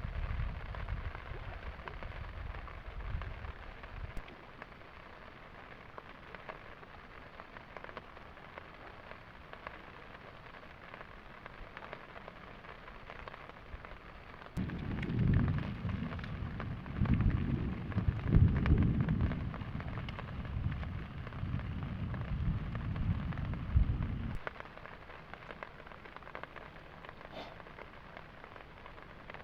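Steady heavy rain hissing down. A deep, uneven low rumble comes in twice, briefly at the start and again for about ten seconds in the middle, starting and cutting off abruptly.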